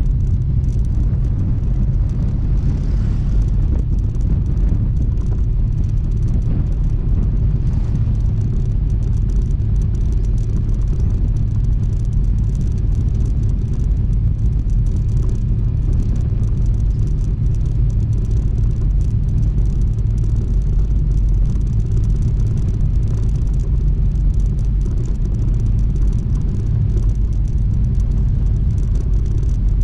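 Honda ADV160 scooter under way at a steady pace: a steady low rumble of its single-cylinder engine, tyres and passing air.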